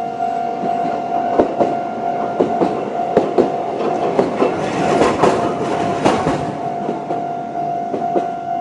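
Man'yōsen De7070-series tram passing over a level crossing, its wheels clicking over the rail joints in quick pairs for several seconds, loudest just past the middle. Throughout, the crossing's electronic warning alarm keeps ringing on one steady pitch.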